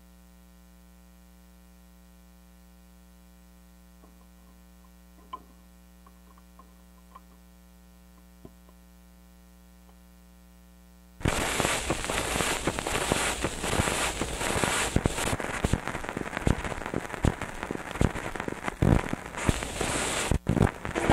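Steady electrical hum from the record player, with a few faint clicks as the tonearm is handled. About eleven seconds in, the stylus drops into the groove of a homemade disc recording, and loud crackling surface noise and hiss begin, dense with clicks and pops.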